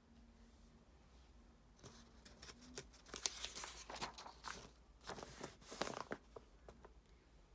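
Paper pages of a printed workbook being turned by hand, rustling and crackling. It starts about two seconds in and comes in two louder flurries as the pages flip over and are pressed flat.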